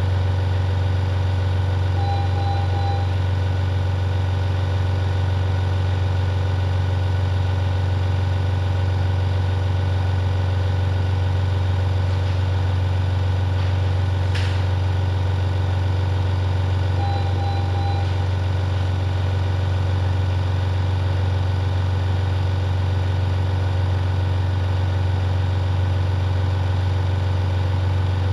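Neonatal ventilator equipment running with a steady low hum. Two short high electronic beeps come about fifteen seconds apart, and there is a single click near the middle.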